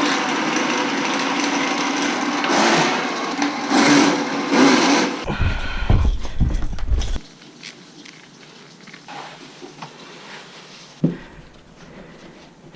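Tool noise during plumbing work: a steady mechanical whir for about five seconds, then quieter handling noises with a single sharp knock near the end.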